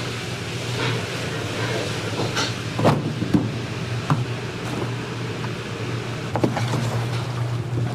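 Commercial kitchen sounds: a steady low hum and rushing noise, with a few sharp clanks of metal utensils or cookware.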